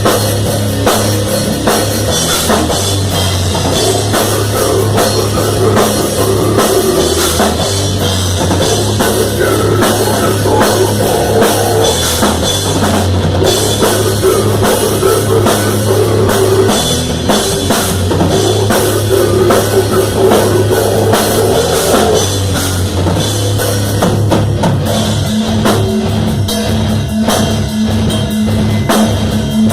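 Rock music with a full drum kit playing throughout, with guitar.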